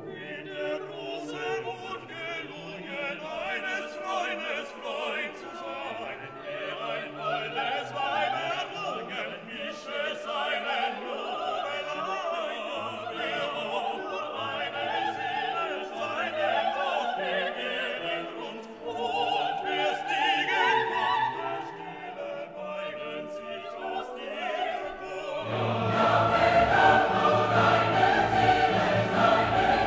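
Background music: classical-style singing over orchestral accompaniment, getting fuller and louder about 25 seconds in.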